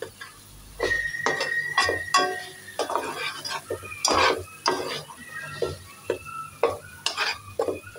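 Metal slotted spatula scraping and stirring thick masala paste as it fries in a non-stick pan, in quick irregular strokes of two or three a second.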